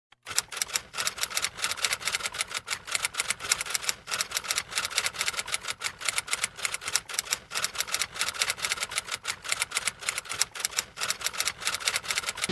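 Typing sound effect: rapid, uneven key clicks, several a second, keeping time with text being typed out on screen.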